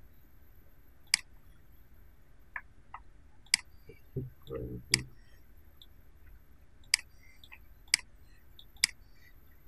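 Computer mouse clicking: about six sharp single clicks at irregular intervals, with a few fainter ticks between them.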